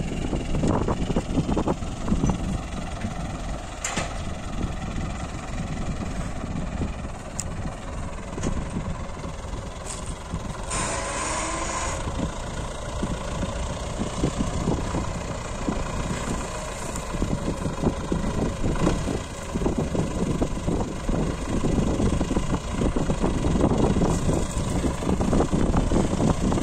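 Tractor's diesel engine running steadily while it drives a PTO-powered boom sprayer, with a brief hiss about eleven seconds in.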